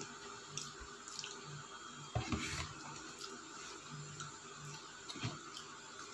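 Eating sounds: a metal fork working spaghetti in a paper takeaway box and the box being handled. There are a few short clicks and wet, rustling noises, the loudest a bit over two seconds in, over a steady hiss.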